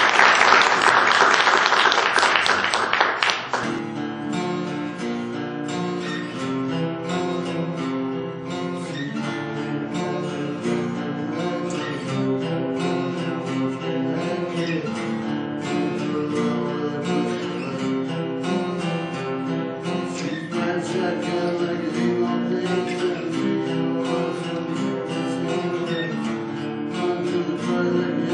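Three acoustic guitars played together. It opens with a loud, dense flurry of fast strumming that stops sharply about three and a half seconds in, then the guitars settle into picked melody and chords.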